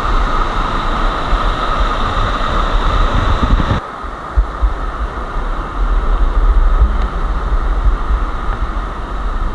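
Steady rushing hiss over deep, uneven rumbling thumps on the microphone. The higher hiss drops away suddenly about four seconds in, leaving mostly the low rumble.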